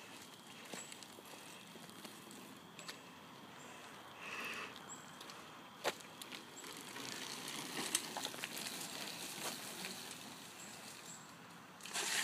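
Small BMX bike ridden on asphalt, heard faintly: tyres rolling with a few sharp clicks and knocks.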